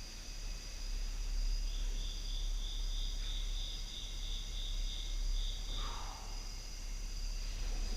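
Crickets or other insects trilling steadily in several high pitches, with one louder, pulsing trill from about two to six seconds in, over a low steady hum.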